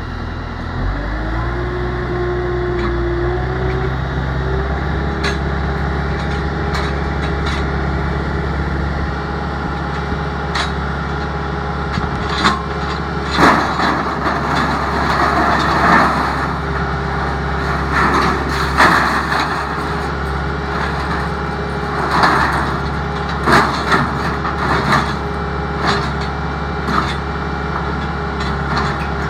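Skid steer engine revving up in the first few seconds, then running steadily as it powers a Bradco backhoe attachment. From about twelve seconds in, repeated loud metallic clanks and bangs as the steel excavator thumb and bucket grip and move a heavy steel sheet.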